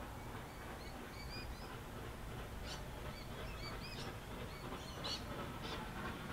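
Small birds chirping in short, repeated, rising-and-falling notes, with a few sharper calls a few seconds in, over a faint steady low rumble.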